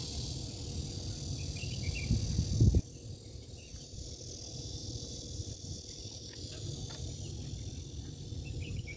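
Insects chirring steadily in a high pitch over a low outdoor rumble; the rumble swells and cuts off abruptly about three seconds in, and the chirring is fainter after that.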